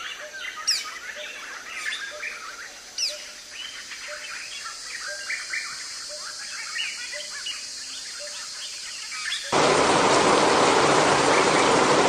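Forest ambience of many birds chirping over a steady high-pitched drone, with two sharp descending whistles in the first few seconds. About nine and a half seconds in it cuts abruptly to the loud, steady hiss of heavy rain.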